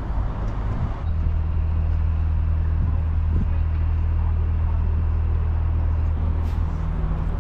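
A steady low mechanical hum starts about a second in and holds, over general outdoor background noise.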